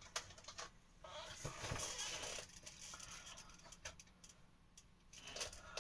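Faint rustling and a few light clicks and knocks of handling as someone reaches for and picks up things.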